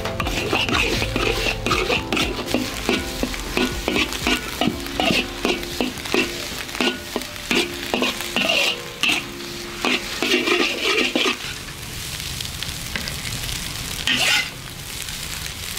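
Noodles and egg sizzling in a large iron wok while a utensil scrapes and stirs them against the metal in quick, uneven strokes. The stirring eases off about twelve seconds in, leaving mostly the sizzle.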